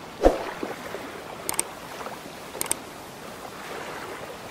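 Steady watery rushing ambience, like water moving past a boat or a stream. A dull thump comes about a quarter second in, and two quick sharp double clicks come about one and a half and two and a half seconds in.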